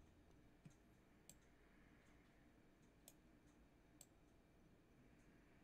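Near silence: faint room tone with a handful of sparse, faint clicks from the computer being used to draw.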